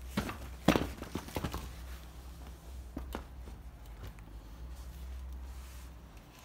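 Handling noise as a pair of suede sneakers is moved about and set on a wooden slatted stand: a cluster of knocks and rustles about a second in, and another couple of knocks around three seconds, over a steady low hum.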